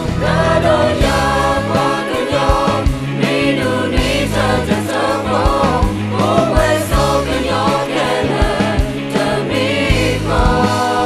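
Several voices, men and women, singing a song together over a band with bass and drums.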